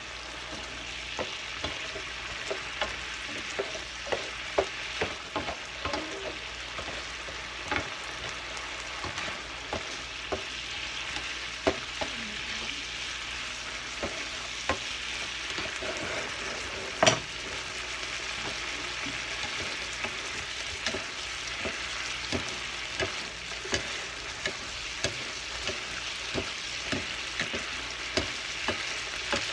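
Shrimp sizzling steadily in a frying pan while a wooden spatula stirs them, knocking and scraping against the pan every second or so. One louder knock comes a little past halfway.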